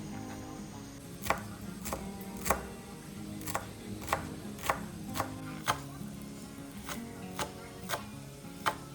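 Knife chopping on a cutting board: about a dozen sharp, unevenly spaced strokes, over background music.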